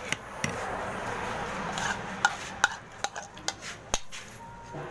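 Metal spoon stirring and scraping in a bowl of noodle soup, with a run of about seven sharp clinks against the bowl.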